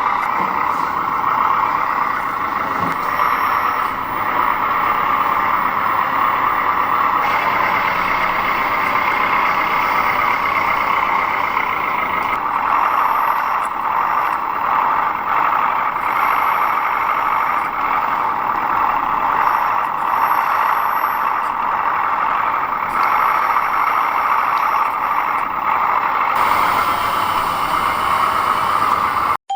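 Radio-controlled model construction machines running: a steady high-pitched whir of small electric motors and gearing, with short, very high whines that switch on and off.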